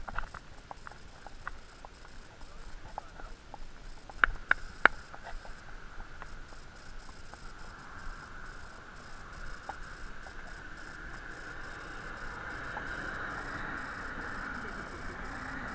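Horse walking on a farm track: scattered soft clicks of hooves and tack, two sharper clicks a little over four seconds in, and a steady hiss of road traffic that grows louder over the second half.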